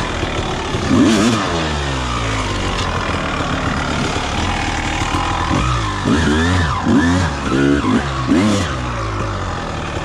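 1999 Honda CR250R's single-cylinder two-stroke engine revving up and down in short throttle bursts over rough trail. There is one sharp rev about a second in and a quick run of several about halfway through.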